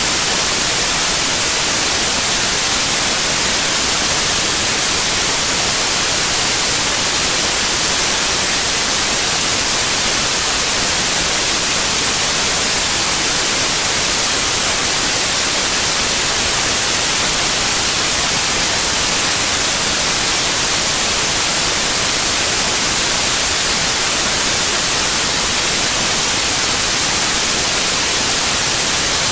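Loud, steady hiss of electronic static, even and unchanging throughout, stronger in the treble than the bass.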